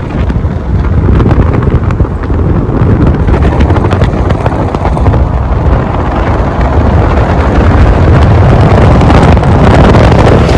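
Wind buffeting the microphone: a loud, continuous low rumble with a rushing hiss over it, growing a little louder in the second half.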